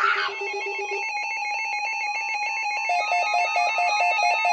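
Electronic emergency alert tone signalling an incoming marine warning: a steady, rapidly pulsing beep like a phone ringing, whose pattern shifts about a second in and again around three seconds in.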